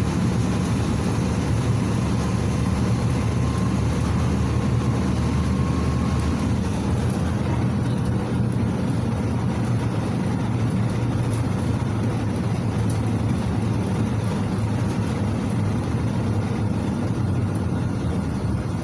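Interior of a PAZ 4234-04 bus under way: its YaMZ-53423 four-cylinder turbodiesel running steadily, with road and tyre noise. The high hiss eases a little about eight seconds in.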